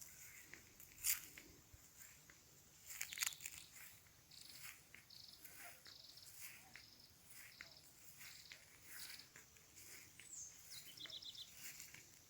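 Faint birdsong: short, quick chirping phrases repeated every second or so, with a falling whistled note followed by a fast run of notes near the end. A few sharp crunches in the first few seconds.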